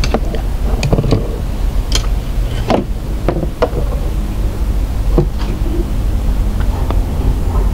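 Steady low rumble of wind on the microphone, with a scattering of sharp knocks and clicks from fishing gear and hands moving against the small boat.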